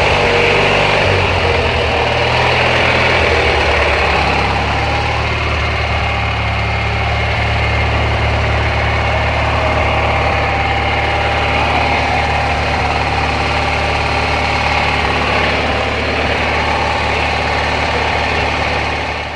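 Riding lawn mower's small engine running loudly at a steady idle, settling in the first second or so.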